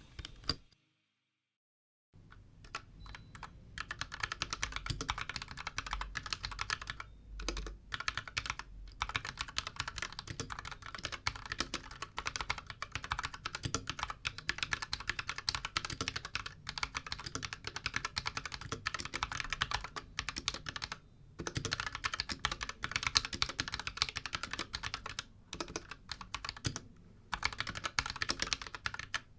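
Fast typing on a Royal Kludge RK61 mechanical keyboard fitted with AKKO Matcha Green switches and XDA profile keycaps: a dense run of key clacks, starting about two seconds in, broken by a few short pauses.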